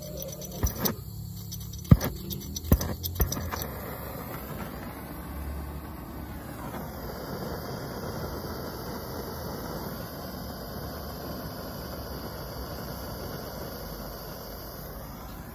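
Handheld gas torch being lit with a flint striker: a few sharp scraping clicks over the first three seconds, then the torch catches and its flame hisses steadily, growing fuller about seven seconds in. The flame is heating a stuck exhaust manifold bolt to free it.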